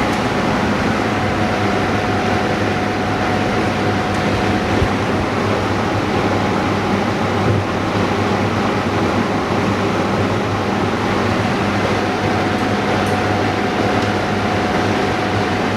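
Steady machine noise: a continuous hiss with a low hum and a faint steady tone, unchanging throughout.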